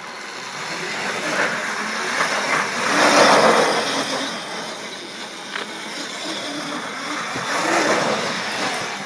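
Electric quad bike driving over rough ground: a noisy rush of tyres with no engine note. It swells about three seconds in and again near the end.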